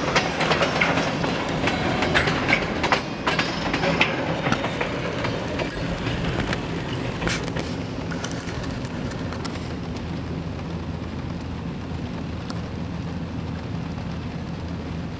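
Freight train of tank cars passing, its wheels clicking and clattering over the rail joints. It is loudest in the first few seconds, then fades to a steadier, muffled low rumble as heard from inside a car.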